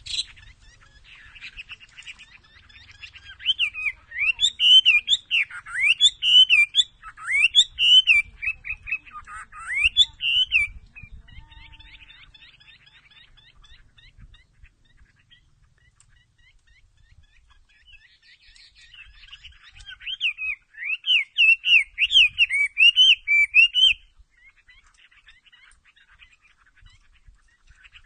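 A bird singing and calling in quick, varied chirping phrases. It comes in two loud bursts, one of about six seconds starting a few seconds in and a shorter one about two-thirds of the way through, with softer chatter in between.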